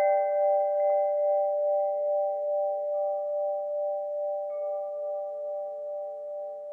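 Wind chimes ringing on after a cluster of strikes, several clear notes held and slowly fading with a steady wavering pulse. A couple of soft new notes join in partway through.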